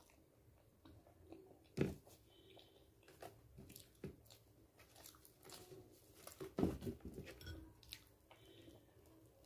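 Faint chewing of fried luchi dipped in chana dal: soft, wet mouth clicks and smacks, with louder ones a little under two seconds in and about two-thirds of the way through.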